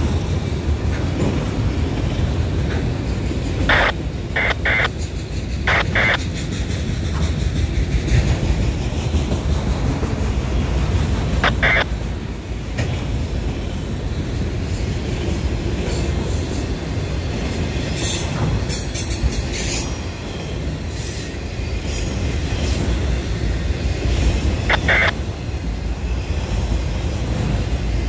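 Freight train of autorack car carriers rolling past at close range: a steady low rumble of wheels on rail. Brief high-pitched wheel squeals come several times in the first few seconds, and once or twice more later.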